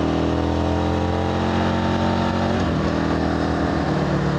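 Ronin 47 motorcycle's Rotax 1125 cc V-twin, from the Buell 1125, pulling on the road with its pitch rising gradually. About two and a half seconds in the pitch drops as it shifts up, then it runs steadily.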